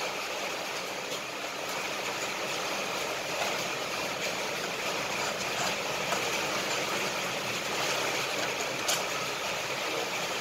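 Steady background noise, an even hiss-like hum with no change in level, with one light click near the end.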